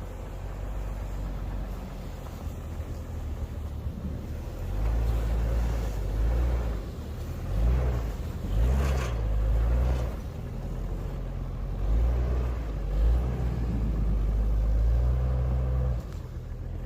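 Off-road SUV engine revving in repeated bursts over a steady low rumble, its pitch rising and falling as it works through deep mud. The revving drops away suddenly near the end.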